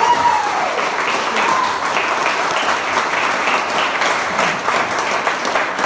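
An audience applauding: many people clapping steadily together.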